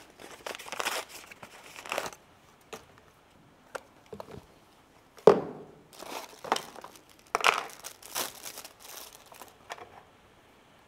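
Plastic wrapping crinkling and tearing in irregular bursts as respirator cartridges are unpacked from their bags and cardboard box, with one sharp knock, the loudest sound, about five seconds in.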